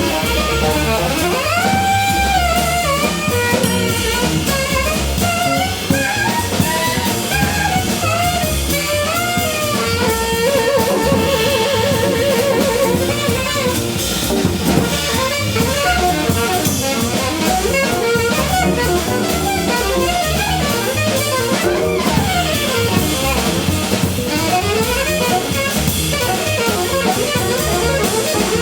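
Live jazz combo playing: guitar, bass and drum kit, with a melodic lead line that bends in pitch and plays a quick trill about eleven seconds in.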